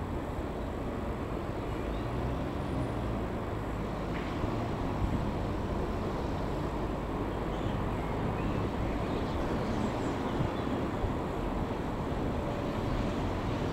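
Freight train running past with a steady low rumble and a faint low engine hum underneath.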